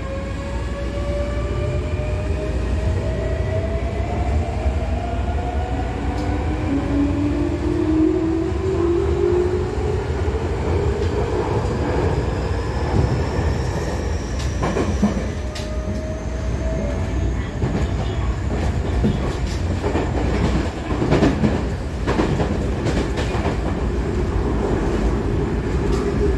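Toei 6300-series subway train heard from inside the car: a motor whine rising in pitch over the first ten seconds or so as it gathers speed, over a steady running rumble. From about halfway, a thin higher whine rises and the running noise is broken by many short clicks and knocks from the wheels on the track.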